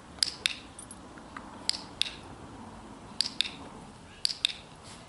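Dog-training clicker pressed and released four times, each time a crisp double click, marking the dog's behaviour on the cushion.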